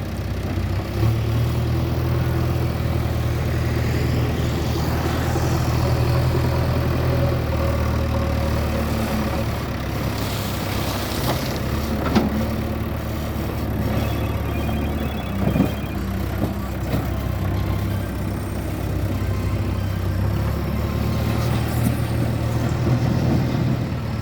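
JCB 3DX backhoe loader's diesel engine running steadily as the machine works, its note shifting now and then, with a few sharp knocks about halfway through.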